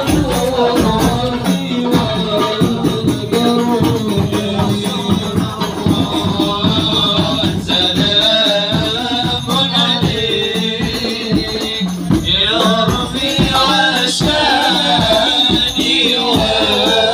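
Men's voices singing a devotional Islamic chant together, accompanied by hand-beaten frame drums and continuous jingling percussion.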